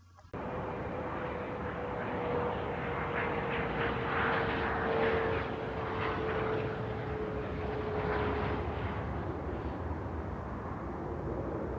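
A steady engine drone with a single tone that slowly falls in pitch and fades out about eight seconds in.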